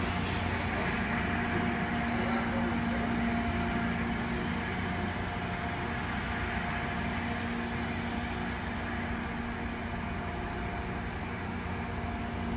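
LORAM rail grinder running in the distance: a steady engine drone with a constant low hum, fading slowly as the train moves away.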